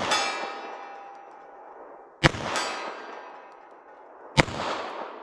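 Snub-nose revolver in .32 S&W Long fired twice, about two seconds apart, with a long ringing tail after each report. About a third of a second after the first shot, and again at the very start from a shot just before, a steel target clangs and rings, the sign of a hit at 40 yards.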